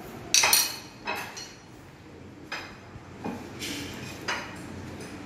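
A metal spoon clinking and scraping on a ceramic dessert plate, with about half a dozen separate knocks and clinks of tableware. The loudest comes about half a second in.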